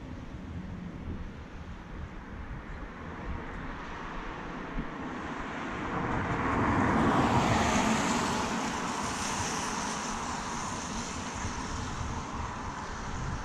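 A vehicle passing by on the road, a broad rush of engine and tyre noise that builds to its loudest about seven seconds in, then fades slowly.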